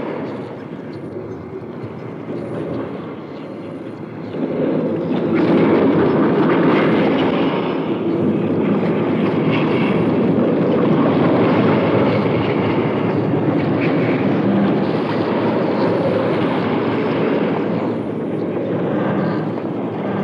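Dense, steady rumbling noise from an experimental noise and field-recording tape piece, stepping up in loudness about four seconds in.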